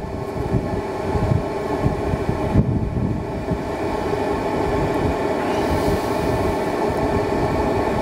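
Planar portable diesel air heater running flat out at its highest setting, heard close up: a steady blower-fan hum over a low combustion and exhaust rumble, getting slightly louder as it cranks up.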